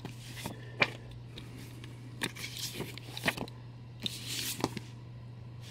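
Comic books being handled and slid across a pile: paper rustling in short stretches, with a few sharp taps. A steady low hum runs underneath.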